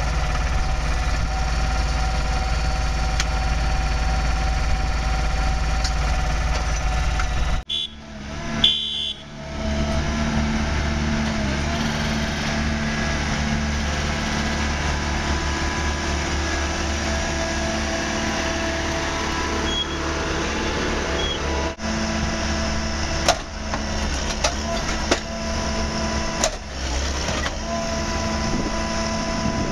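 Diesel engines of rail track-maintenance machines running steadily, with several sharp knocks in the second half. The sound briefly drops away about eight seconds in.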